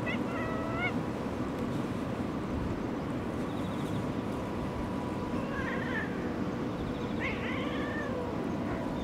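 Cat meowing: a short meow at the start and two more between the middle and near the end, over a steady low outdoor background.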